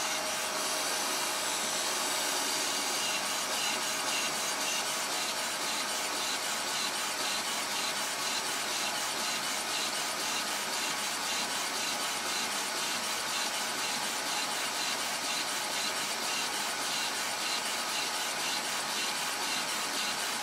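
Vacuum cleaner running steadily with a loud hiss. Its suction drives a small home-made slide-valve air engine, heard as a fast, even pulsing through the noise.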